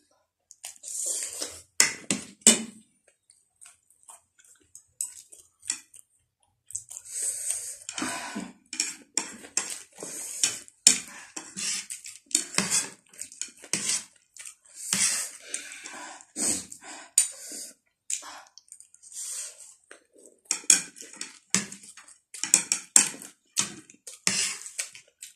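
Close-miked eating sounds: spoons and forks clinking and scraping on plates, mixed with slurping and chewing of spicy instant noodles and chatpate, in irregular short bursts with brief pauses.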